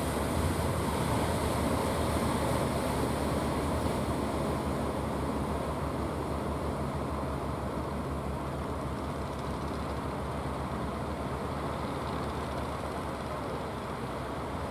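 Engine of a large wooden fishing boat running steadily with a low, even hum, easing off slightly as the boat moves away, over the wash of surf.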